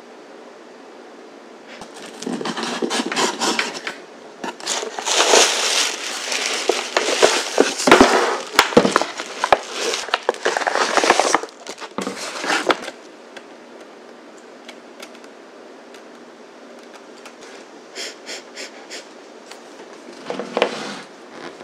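Kraft paper bag rustling and crinkling in bursts while a pump bottle of hand soap and a tube are taken out of it, loudest and longest in the first half, then a few short rustles near the end.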